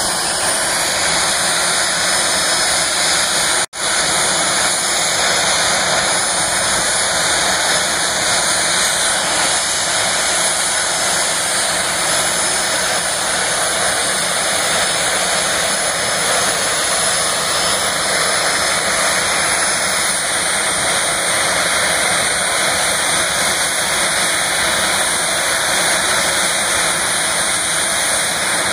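Jet dragster engines running at the starting line: a loud, steady rush with a high whine on top. The sound cuts out for an instant about four seconds in.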